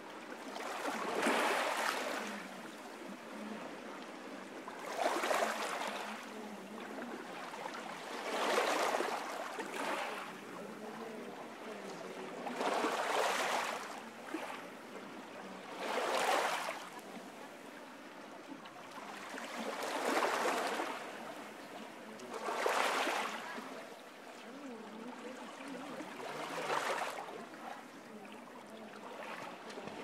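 Ocean surf: waves breaking and washing up a beach, a swelling rush of foam about every three to four seconds over a steady hiss of water.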